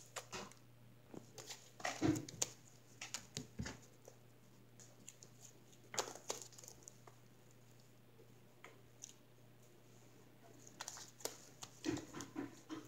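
White slime being stretched and pulled apart by hand until it rips, giving faint, scattered sticky clicks and pops.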